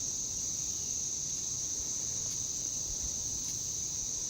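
Steady high-pitched chorus of insects, over a faint low rumble.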